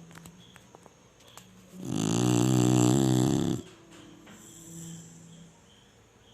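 Chinese Shar-Pei snoring in its sleep: one loud snore about two seconds in, lasting nearly two seconds.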